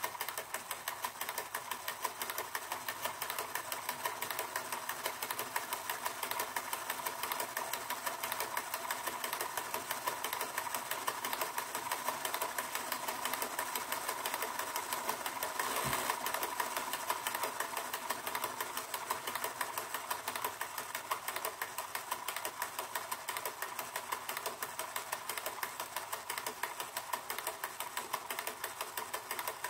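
Hasler Bern RT9 railway tachograph running, its mechanism making a fast, even mechanical ticking over a faint steady tone as it records speed and time on wax-coated paper. One louder click comes about halfway through.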